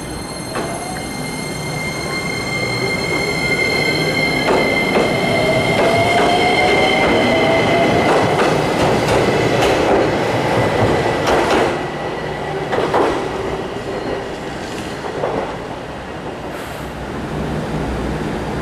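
JR Kyushu 817 series electric train pulling out and accelerating. Its traction motors give a whine that rises in pitch over the first several seconds, a steady high tone fades as it draws away, and the wheels click over rail joints.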